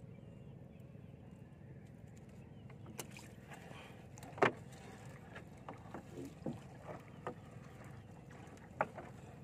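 Fishing net being hauled by hand into a small wooden outrigger canoe, with scattered knocks and clicks against the hull as the net and its floats come aboard. The two sharpest knocks come about halfway through and near the end, over a steady low wash of water.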